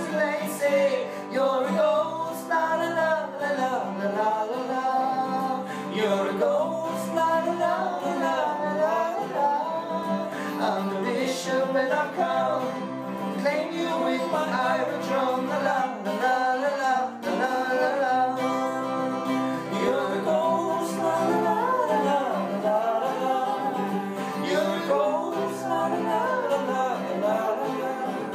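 Two acoustic guitars strummed together while two men sing, a melodic vocal line with no clear words.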